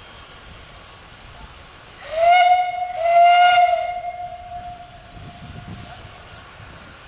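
Steam whistle on a miniature live-steam locomotive blowing two blasts, a short one and then a longer one that fades away, each starting with a slight upward slide in pitch.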